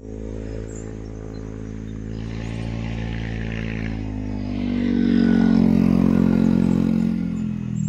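A motor vehicle engine running steadily, growing louder to its loudest about five to six seconds in, its pitch sagging slightly after that.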